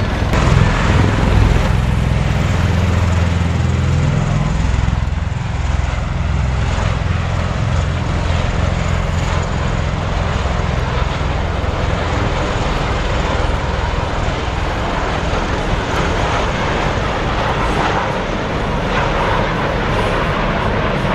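MV-22 Osprey tiltrotor aircraft flying over the airfield: a loud, steady, low rumble of its proprotors and engines with a fast beat from the rotor blades.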